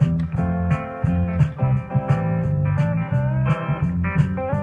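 Background music: bluesy guitar with bending notes over a steady bass line and beat.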